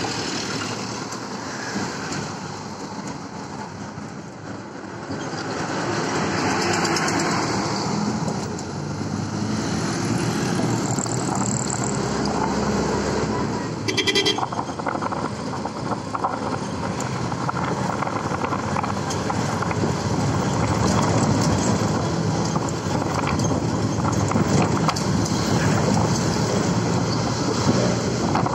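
Running engine, tyre and wind noise of a vehicle driving along a road, heard from inside it, with a brief sharp sound about halfway through.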